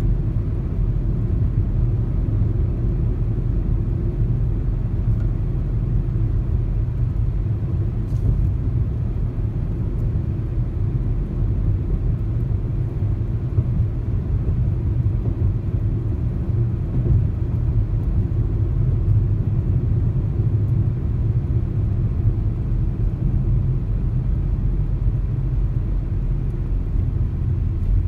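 A car driving along, with a steady low rumble of road and engine noise.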